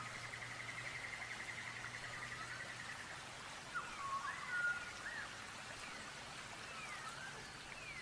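Birds singing outdoors: a fast, even trill for about three seconds, then a string of slurred whistled notes rising and falling. A faint low hum underneath fades out about halfway through.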